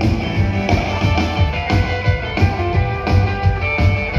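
Rock-and-roll band playing live: guitar and drums with a steady beat.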